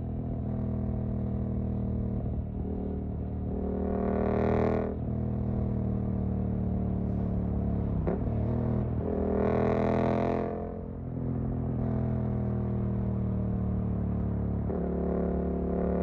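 Suzuki GSX-8S parallel-twin engine running through a Jeskap EVO aftermarket exhaust while riding, with the engine note swelling louder twice, around four and ten seconds in, and changing pitch several times.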